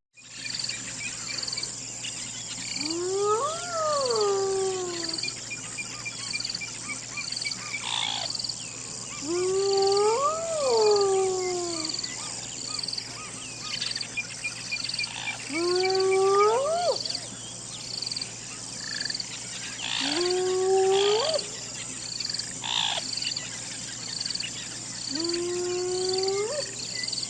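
Hyena calling: five long calls, each rising and then falling in pitch, about every five to six seconds. A steady high chirping pulse runs underneath, about one a second.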